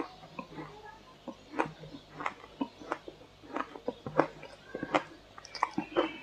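Close-up crunching and chewing of matcha-dusted shaved ice in the mouth: a run of sharp, irregular crunches, several a second. Toward the end a metal spoon scrapes and clinks against ice in a glass bowl.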